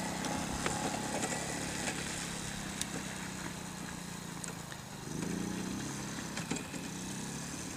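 Kazuma 50cc four-stroke quad bike engine running as the quad rides along, slowly growing fainter, then picking up revs about five seconds in and holding there.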